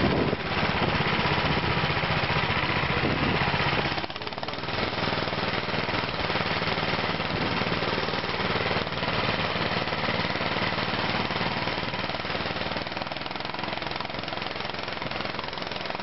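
Small air-cooled engine of a motorized snow towing unit running under load, a fast steady chugging. It dips briefly about four seconds in, then runs on slightly quieter.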